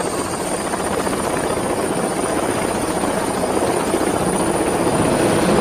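Helicopter in flight: a steady rotor and engine sound with a thin high whine over it, slowly growing louder.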